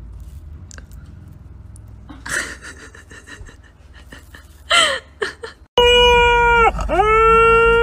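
Soft breathy sounds and a few faint clicks, then after a sudden cut, about six seconds in, a dog howling inside a car: one long, loud, steady howl with a brief dip in pitch.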